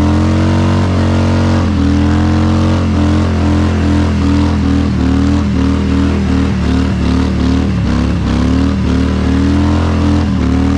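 Motorcycle engine held at high revs during a burnout, its rear tyre spinning in place. The pitch wavers, then from about halfway dips and recovers in quick repeated pulses.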